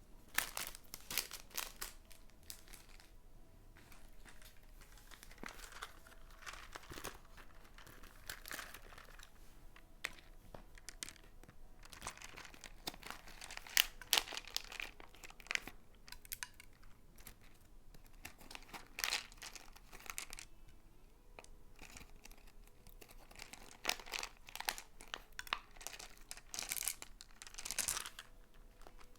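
Slime being kneaded and stretched by hand while pigment is worked in: clusters of small sticky clicks coming in irregular bursts, the loudest about a third and a half of the way through.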